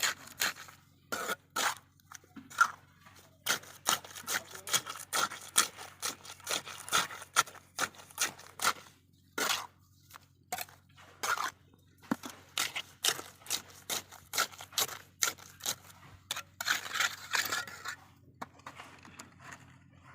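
Steel mason's trowel scraping and tapping on mortar and concrete blocks: many short, irregular scrapes and knocks, over a faint steady low hum.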